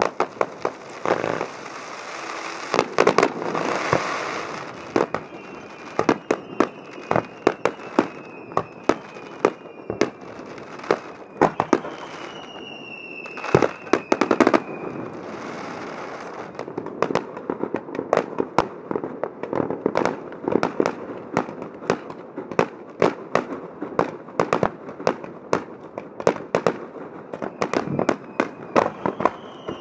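Aerial firework shells launching and bursting in a dense run of sharp bangs, coming faster in the second half. A few whistles glide down in pitch about twelve seconds in and again near the end.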